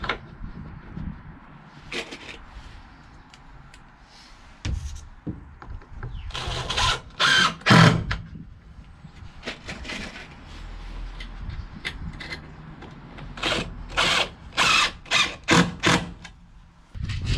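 DeWalt cordless driver driving screws through a pine batten, in two runs of short bursts: one about six seconds in and a longer run of about half a dozen from about thirteen seconds in.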